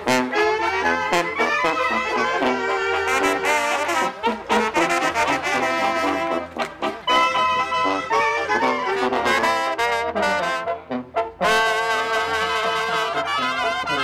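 Brass music: horns playing a melody, with a short drop in level a little after the middle.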